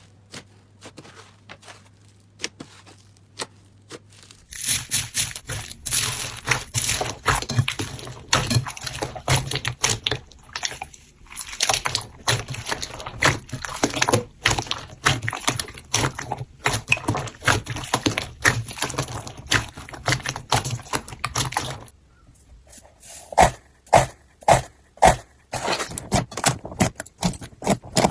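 Slime being handled by hand: quick, dense sticky clicks and crackling pops that thin out to fewer, louder pops about 22 seconds in.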